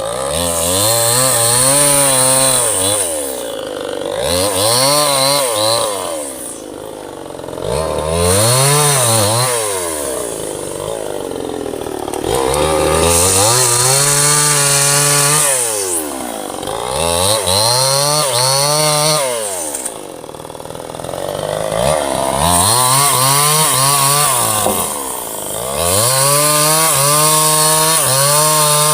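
Two-stroke chainsaw cutting through a large teak log, its engine revving up and easing back about seven times as the chain works through the wood.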